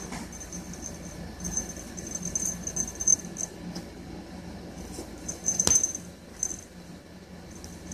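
The small bell and beads on a feather wand cat toy jingling in two spells as a cat grabs and bats at it, with one sharp click a bit before six seconds in, over a faint steady hum.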